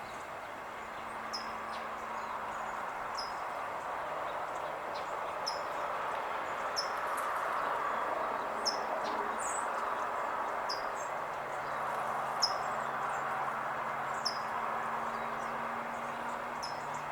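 A small bird repeating a short, high, falling call about once a second, over steady outdoor background noise.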